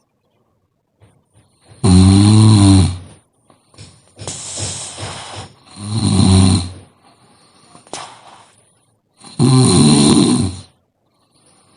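A sleeping person snoring loudly: three long pitched snores, roughly every three to four seconds, with a breathy rush of air between the first two and near silence between breaths.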